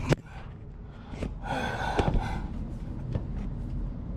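A man's strained, breathy gasp about a second and a half in, with a sharp click at the start and a few faint knocks, as he works a heavy oil filter on by hand.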